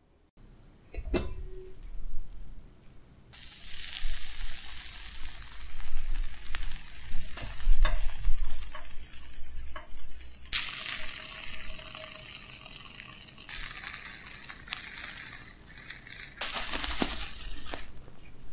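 Butter sizzling in a frying pan under a soufflé omelette, a steady hiss that starts about three seconds in and gets louder around ten seconds and again near the end. A plastic spatula scrapes and knocks against the pan as the omelette is folded and lifted.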